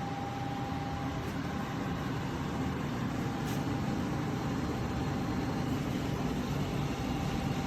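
Portable air conditioner running, a steady whoosh of air with a low hum beneath it.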